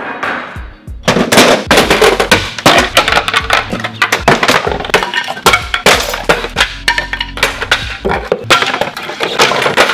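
Wooden kitchen cabinet doors and drawers clattering and cracking as they are thrown down and broken apart on asphalt: many rapid knocks and cracks starting about a second in, over background music.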